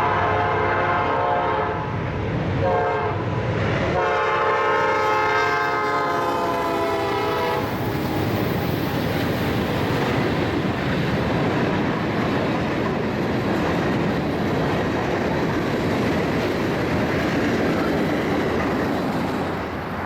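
Multi-chime air horn of a freight train's lead locomotive, a CN GE C40-8W, sounding for a grade crossing: the tail of a long blast, a short blast about two and a half seconds in, and a long blast from about four to seven and a half seconds. After it, the steady rumble and clatter of the mixed freight cars rolling past.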